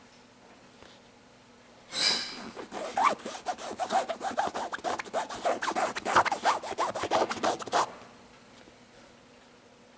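Fingers rubbing and scratching quickly back and forth over the black fabric upper of an Air Jordan 12 sneaker, a loud scratchy run of several strokes a second. It starts about two seconds in and stops near the end.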